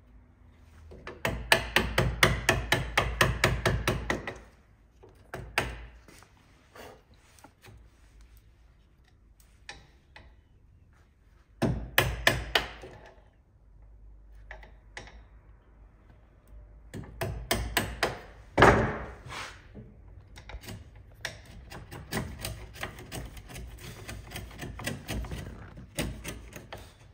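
Bevel-edge chisel cutting away the waste of a halving joint in pine, in several bursts of rapid tapping and chopping, with wood fibres splitting.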